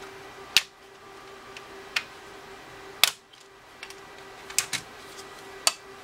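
Sharp plastic clicks and taps from a TI-83 Plus calculator's case being handled and its back shell pulled apart. About half a dozen clicks come at uneven intervals, the loudest about three seconds in, with a faint steady hum underneath.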